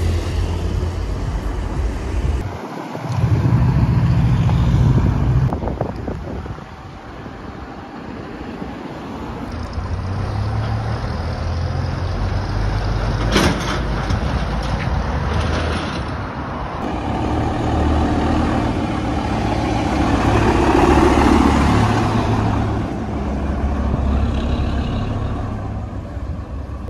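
Road vehicle engines in a street, mostly the low, steady running of old double-decker buses driving past and idling. There is a brief sharp noise about halfway through.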